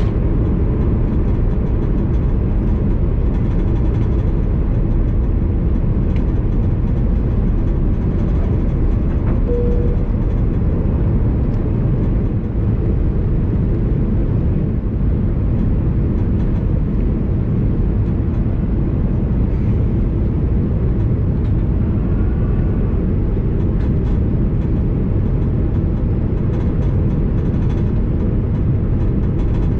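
Steady low rumble of engine and airflow noise inside the cabin of an Airbus A330-200 airliner, with one short faint beep about nine seconds in.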